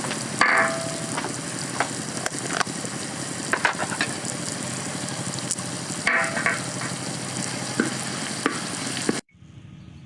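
Food sizzling as it fries in a pan over a fire, with clicks and scrapes from a utensil stirring it. The sizzle cuts off suddenly near the end, leaving a quieter background.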